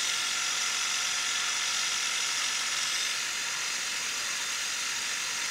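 Bridgeport vertical milling machine running, an end mill cutting 7075 aluminum: a steady hiss with a faint high whine, easing slightly about three seconds in.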